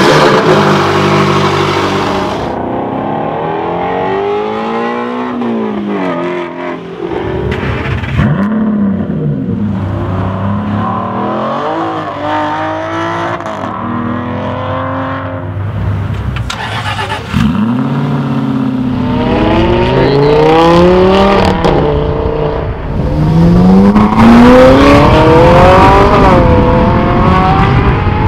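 Several supercar engines in turn, among them a McLaren 570S, an Aston Martin Vantage Roadster and a Ferrari 458, revving and accelerating hard. Engine pitch climbs through each gear and drops back at each shift, loudest near the end.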